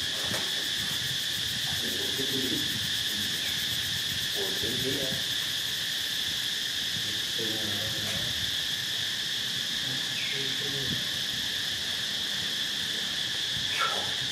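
Steady, continuous high-pitched insect chorus, a constant buzzing drone of crickets or cicadas, with a brief sharp sound near the end.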